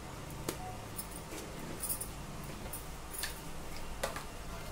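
A few faint clicks and taps of a small plastic food-colour bottle being capped and set down, spread over a few seconds, with a low steady hum underneath.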